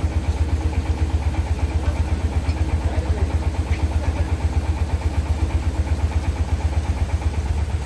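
An engine idling steadily, a low throb pulsing about nine or ten times a second.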